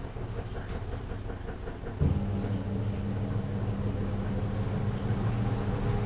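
Miyako MAW-12QS 12 kg washing machine spinning a load of clothes. For the first two seconds there is a faint rhythmic ticking from the turning tub. Then, about two seconds in, the motor's steady hum starts suddenly and much louder.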